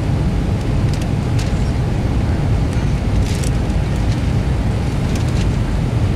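Airbus A320 cabin noise in flight on descent: a steady low rumble of airflow and engines, with a faint steady hum above it and a few brief soft clicks.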